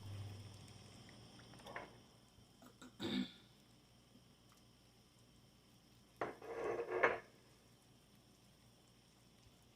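Eating sounds from a bowl of spicy ramen: a few short clicks of utensils against the bowl, and about a second of mouth noise from eating, with low room tone in between.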